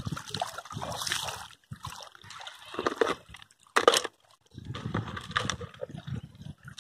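Footsteps splashing and squelching through shallow muddy water and wet ground, in uneven bursts, with one sharper, louder stroke about four seconds in.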